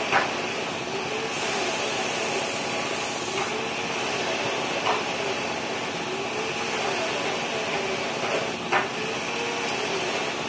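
Compressed-air spray gun spraying wood finish, with a steady air-compressor noise underneath; a sharper hiss of spraying from about a second and a half in lasts about two seconds. A few sharp clicks, and a faint tone that rises and falls about every two seconds.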